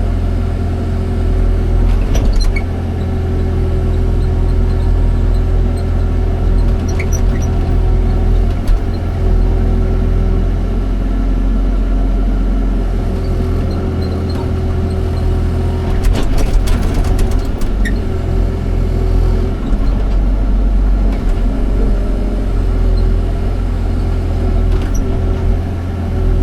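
Excavator's diesel engine running under work, its pitch shifting a little with the load. Brief metallic clanks come about two seconds in and again in a cluster about two-thirds of the way through.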